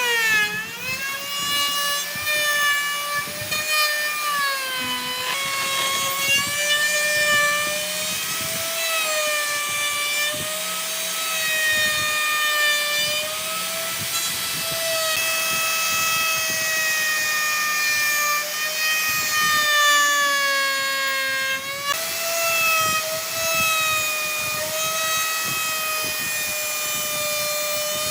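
Handheld electric power tool working wood: a steady motor whine whose pitch dips and recovers as the tool bites in and eases off, with two brief breaks where the tool is lifted or repositioned.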